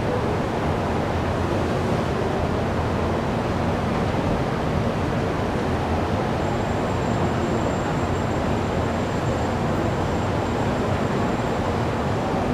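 Steady low rumble of an underground metro station platform with platform screen doors, with no train at the platform; a faint high whine joins about halfway through.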